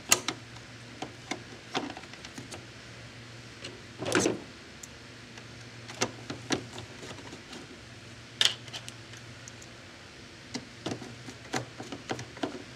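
Scattered clicks and knocks of the hard plastic parts of a Coinco Mag bill validator being handled and fitted back together, with a louder scraping knock about four seconds in and a sharp click about eight seconds in, over a low steady hum.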